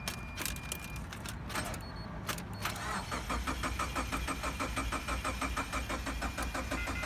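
2013 Subaru Impreza engine cranking over on the starter without firing, a crank-no-start. A few clicks come first, then the starter turns it over in an even rhythm of about five strokes a second.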